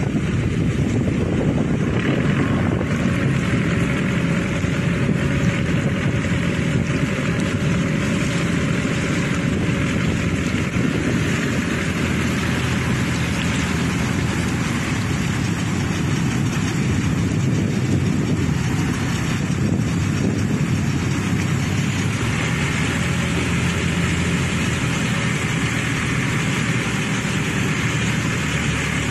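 The engine of a freshly repaired boat running steadily as the boat moves under way, a constant low hum with the rush of water and wind over it.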